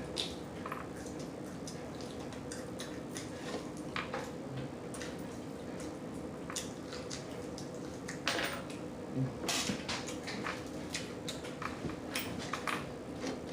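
Close-miked eating sounds: scattered small clicks and smacks from chewing and handling food, with a couple of louder rustles about eight and nine and a half seconds in, over a faint steady hum.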